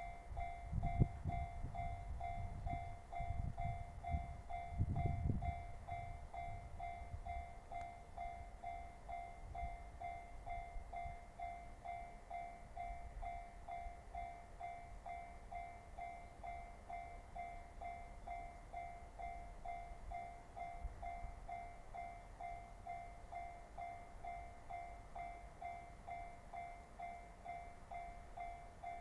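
Japanese railway level-crossing warning bell dinging steadily over and over. A train rumbles past the crossing in the first several seconds, loudest about one and five seconds in, and the bell keeps ringing after it fades.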